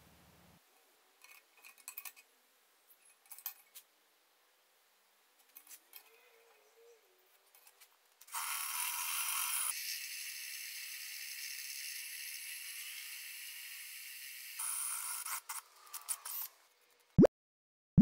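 Power drill boring into a steel plate, running steadily for about six seconds, after light clicks and scratches of a pencil and square marking out. Near the end come two short, loud, rising 'plop' sound effects.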